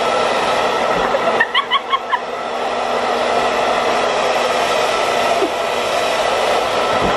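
Handheld hair dryer running steadily: a rush of blown air over a constant hum. About a second and a half in, a quick run of about six short high-pitched sounds cuts through it.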